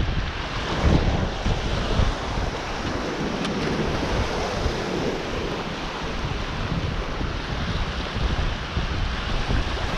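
Ocean surf washing against a rock breakwater, with wind buffeting the microphone in irregular low rumbles.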